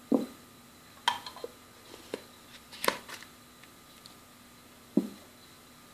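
Scattered light clinks and knocks of kitchen utensils and dishes being handled around a steel mixing bowl, about half a dozen spread over several seconds.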